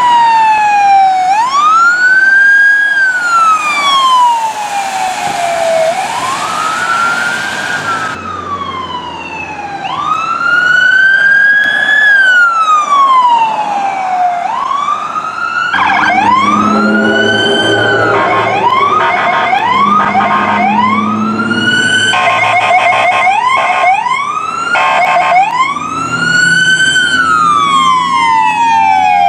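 Fire department vehicle sirens on a wail, rising and falling slowly over and over. In the second half, repeated horn blasts sound over the siren.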